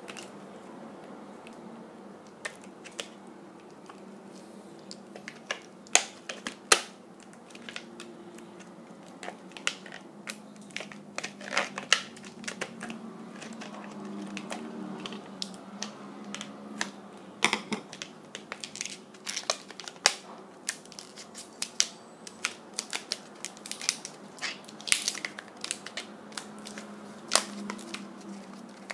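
Black latex modelling balloon being twisted and squeezed between the fingers: irregular rubbery squeaks and sharp clicks, a few of them much louder than the rest.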